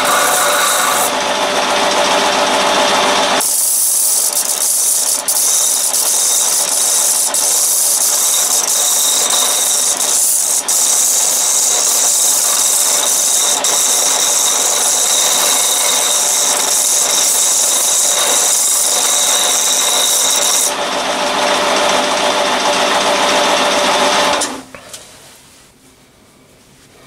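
Disc sander running with the sawn-off end of a steel MT2 taper arbor held against it, giving a harsh, steady grinding hiss through most of the clip. The sound cuts off sharply near the end.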